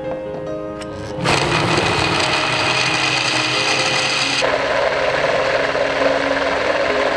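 Countertop blender motor starting up about a second in and running loud, blending soaked cashews and water into a smooth frosting; a few seconds later its sound turns less hissy and more even. Soft piano music plays before it starts.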